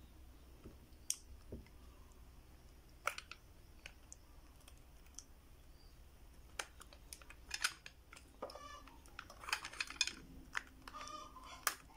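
Small hard plastic clicks and taps from handling and posing a Phoenix Ikki action figure in its armor on a clear plastic clip-on stand. The clicks are sparse at first and come thick and fast in the second half as the limbs and armor parts are moved.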